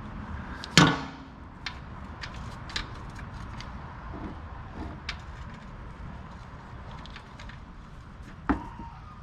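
Metal hand tools clinking: a dog-bone socket wrench and 15 mm socket being handled and fitted. There is a sharp clack about a second in, a scatter of lighter clicks, and another knock near the end.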